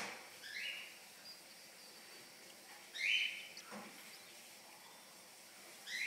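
Cockatiel chicks begging in the nest box while being fed: three short calls about two and a half seconds apart, the last right at the end.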